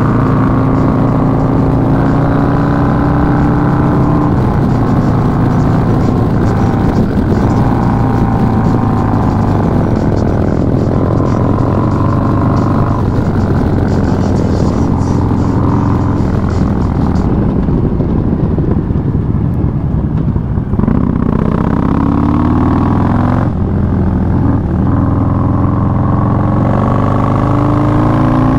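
Harley-Davidson Low Rider S 131-cubic-inch Milwaukee-Eight V-twin running loud through an S&S Super Street race-only 2-into-1 exhaust, its pitch rising and falling again and again as the throttle is rolled on and off.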